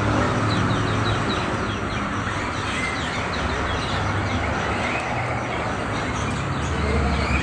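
Many small caged birds chirping in quick, repeated descending notes over a steady low rumble.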